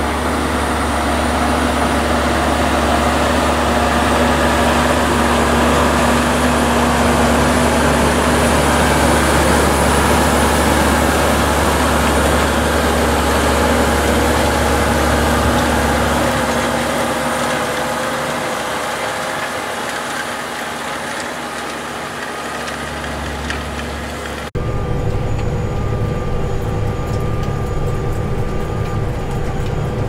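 Tractor engine running steadily under load while pulling front and rear reversible ploughs through stubble. It passes close by, loudest about a third of the way through, then fades. Near the end the sound changes suddenly to the steady engine drone heard from inside the tractor cab while ploughing.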